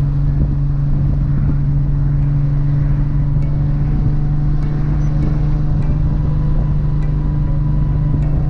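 Nissan GT-R R35's built 4.1-litre VR38 twin-turbo V6 running at a steady, unchanging engine note while cruising under light load.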